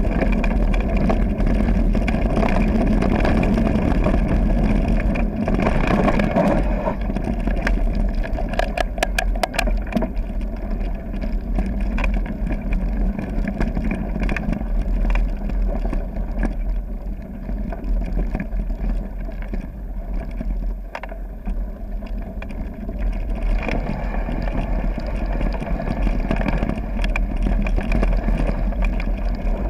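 Mountain bike riding along a gravel forest trail, heard from a camera carried on the bike or rider: steady wind rumble on the microphone, tyres crunching on gravel, and the bike rattling and clicking over bumps. It eases off for a few seconds past the middle.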